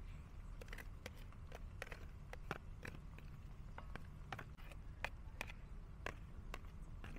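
Irregular sharp clicks and taps, a few a second, over a low steady rumble.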